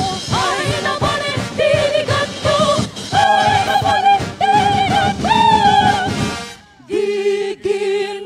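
Dance-performance music: a singing voice with vibrato over a steady drum beat. About six and a half seconds in, the drums drop out and the voice holds long notes alone.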